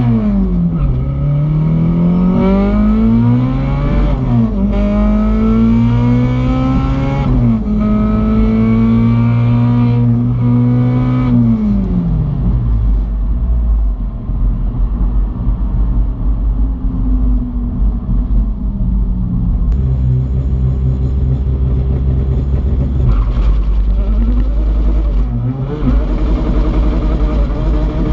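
Turbocharged LS/VTEC engine of a 1995 Honda Civic hatchback, heard from inside the cabin, accelerating hard. The revs climb and drop at two upshifts about 4 and 7 seconds in, hold fairly steady, then fall away after about 11 seconds into a lower, steady drone. The revs rise briefly again near the end.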